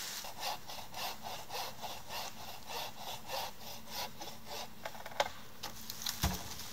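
Hand saw cutting through a dry beech branch, in even back-and-forth strokes about three a second, with a short thud near the end.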